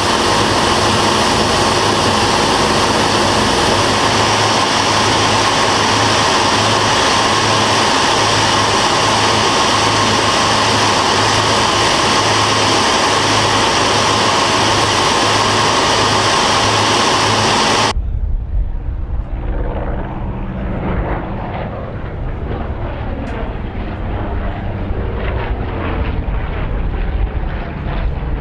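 Cockpit noise of a Grumman F7F Tigercat in flight: the steady drone of its two Pratt & Whitney R-2800 radial engines and the airflow, with an even low pulsing. About two-thirds of the way through it cuts suddenly to the aircraft heard from the ground at a distance, a duller, lower engine rumble.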